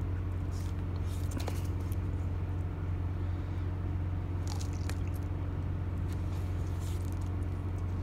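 Sulcata tortoise biting and tearing into a large, fibrous cactus pad, in a few clusters of sharp bites: about a second in, around five seconds, and near seven seconds. A steady low hum runs underneath.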